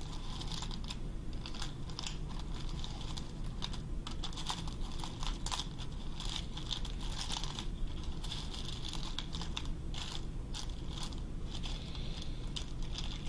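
Fingers rummaging through a tub of loose sewing buttons, the buttons clicking and clattering against each other and the plastic container in a continuous run of small, crisp ticks.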